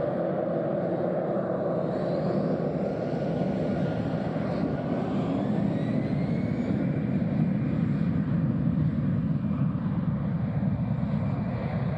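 Air Canada Airbus A320-family jet's engines spooling up for takeoff: a steady roar with a whine that rises in pitch during the first half.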